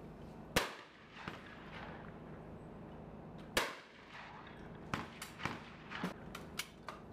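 Two shotgun shots about three seconds apart at clay targets, each trailing off in a short echo. They are followed by a quick run of lighter sharp clicks and knocks.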